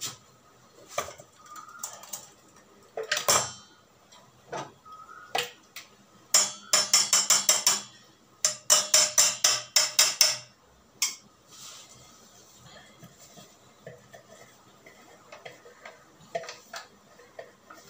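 Steel pot being knocked as tomato puree is emptied into it: scattered clinks, then two quick runs of about nine sharp metallic strikes each, around five a second, with a ringing tone.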